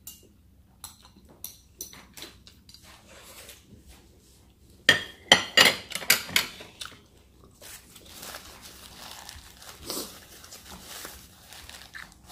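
Eating sounds: chewing with small clicks, then wooden chopsticks clicking and scraping sharply against a ceramic plate about five seconds in, the loudest part. Softer rustling follows as a paper tissue is used.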